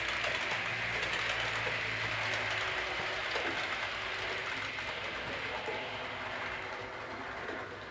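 HO-scale model train running on the layout's track: a steady whirr of the motor and wheels with faint clicking over the rails. A low hum underneath stops about three seconds in.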